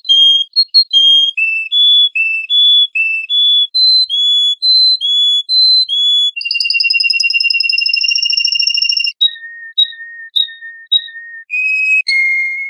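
Songbird singing: clear whistled notes repeated about two a second at changing pitches, then a long rolling trill about six seconds in, then a few short notes. The song cuts off suddenly at the end.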